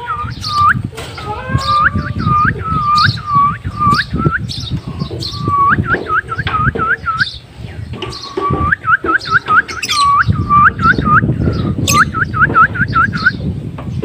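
Quick runs of short chirping whistles, each note sliding upward, repeated about four times a second with brief pauses between runs, over a low rumble.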